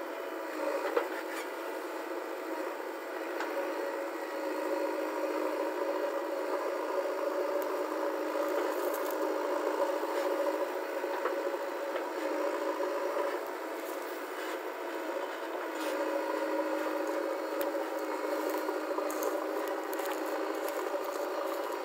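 JCB 3DX backhoe loader's diesel engine running steadily under load while the backhoe digs and dumps soil, with scattered scrapes and clicks from the bucket and earth. The engine sounds thin, its low rumble cut off.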